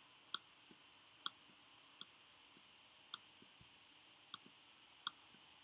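Faint clicks of a computer mouse button, about six sharp single clicks at uneven spacing, over near-silent room tone.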